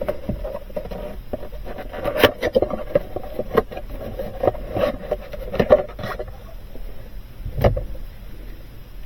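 Handling noise: irregular clicks, knocks and light scrapes for the first six seconds, then quieter, with one heavier thump near the end.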